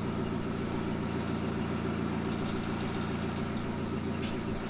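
Forklift engine idling steadily, an even hum that holds without change, with a faint click near the end.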